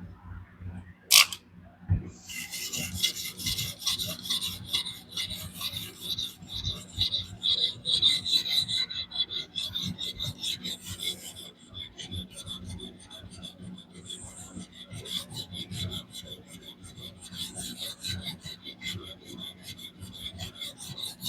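Sharpening plate on a fixed-angle knife sharpener scraping along a DC53 steel blade edge in rapid back-and-forth strokes, with a sharp click about a second in and a brief lull midway.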